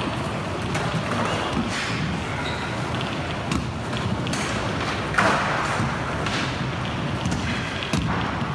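Indoor skatepark ambience: a steady rolling rumble of skateboard, scooter and BMX wheels on the ramps, echoing in a large hall, with a few sharp thuds and clacks of landings and board impacts, the loudest about five seconds in.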